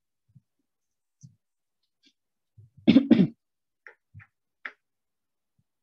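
A man clears his throat twice in quick succession about three seconds in, followed by a few faint clicks.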